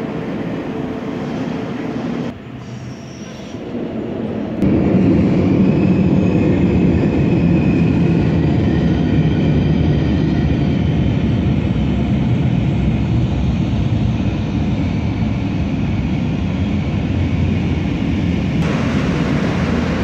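Passenger train running across a steel truss railway bridge: a loud steady rumble with a faint wheel squeal. It gets louder about four and a half seconds in.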